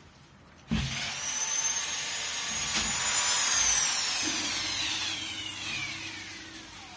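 A handheld electric tool's motor switches on about a second in with a sudden high whine over rushing air, runs briefly, then is switched off and winds down, its whine falling steadily in pitch as the noise fades.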